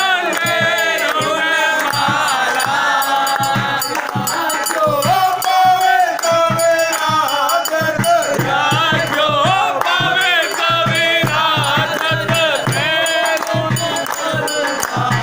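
A Hindu temple aarti sung by a group of voices, chant-like, over fast clattering rhythmic percussion that includes rattling metal.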